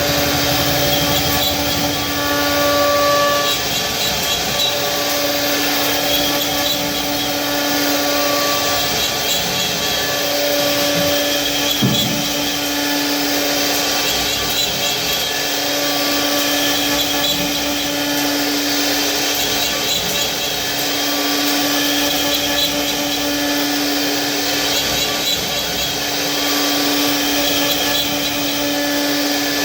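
CNC router spindle running and cutting wood, a steady loud whine with its pitch held and some overtones coming and going as the load changes, over the hiss of the cut; a short thump about twelve seconds in.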